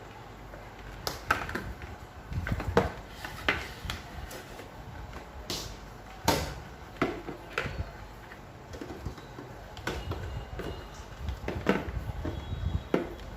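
Irregular clicks and knocks, a dozen or so spread unevenly, from parts of an evaporative air-cooler fan being handled and fitted.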